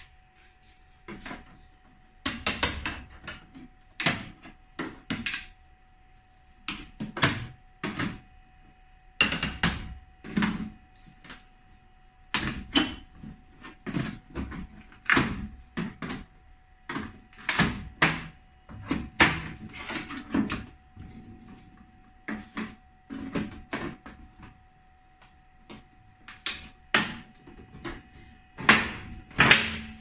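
Irregular metallic knocks, scrapes and rattles of a refrigerator's sheet-metal back panel being pried loose with a hand tool, with a faint steady tone underneath.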